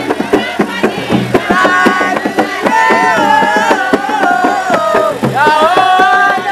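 Hand drums beaten in a fast, dense rhythm, joined about a second and a half in by loud group singing with wavering, sliding notes; the singing breaks off briefly near the end and then starts again.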